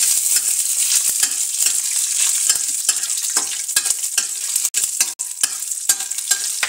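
Cashews roasting in hot oil in a stainless steel kadhai: a steady sizzle, with a spatula stirring and scraping against the pan in many short clicks.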